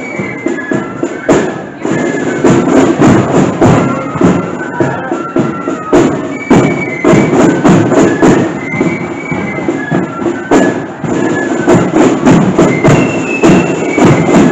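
Marching flute band playing a tune. Flutes carry the melody over quick snare-drum strikes and a bass drum.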